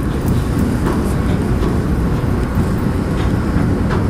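Wind buffeting the microphone on the open deck of a moving ferry: a loud, steady, uneven low rumble with no clear pitch.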